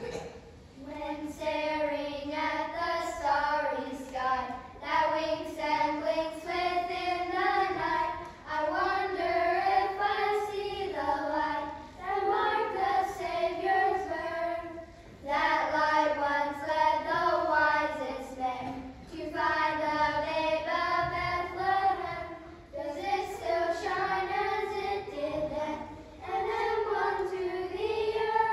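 A small group of children singing a song together, in phrases of a few seconds with short breaths between them.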